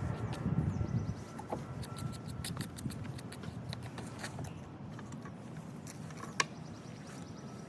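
Saw chain and bar being handled while they are fitted onto a battery chainsaw: scattered light metallic clicks and rattles, with one sharper click about six seconds in.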